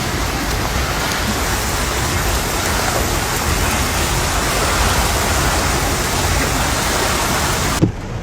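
Heavy rain pouring down, a dense, steady hiss that cuts off abruptly near the end.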